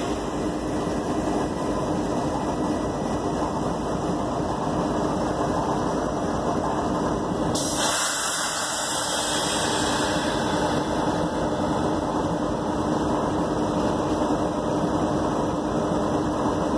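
Diesel-electric freight locomotives of a stopped train idling, a steady engine drone with a constant low hum.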